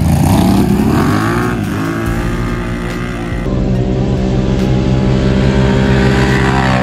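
ATV engines revving up hard from a drag-race launch, the pitch climbing over the first second and a half. After an abrupt change about halfway, one ATV engine runs at steady high revs, its pitch rising again near the end.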